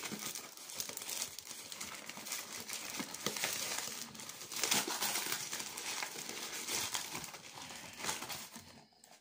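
Packing wrap crinkling and rustling as a beer glass is unwrapped from its packaging by hand, dying away near the end.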